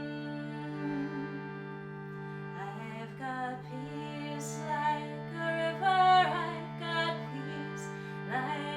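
Harmonium playing sustained chords over a steady low drone, its bellows keeping the reeds sounding, with the chords changing a couple of times. A woman's voice joins in singing along from about two and a half seconds in.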